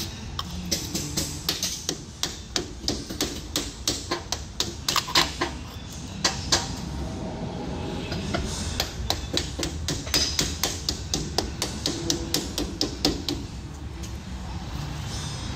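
Rubber-headed mallet tapping a metal grease cap onto a trailer wheel hub to seat it over freshly packed bearings. The blows come two or three a second in two runs, with a brief pause midway.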